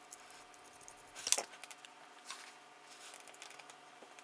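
Small screws and frame spacers being picked up and handled, giving a few light clicks and clinks. The sharpest is about a second in, with fainter ticks after.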